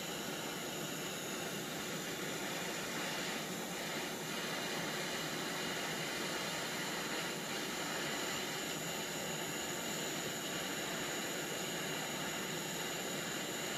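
Hand-held gas torch flame burning with a steady hiss, heating a steel drill horn for silver soldering.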